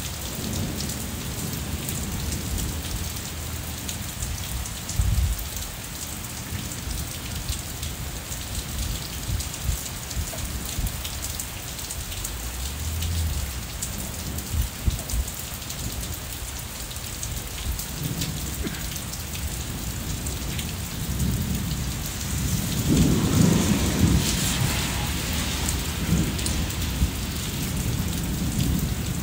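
Steady rain falling on a brick walk and yard, with low rumbles of thunder. The sound swells to its loudest about three-quarters of the way through.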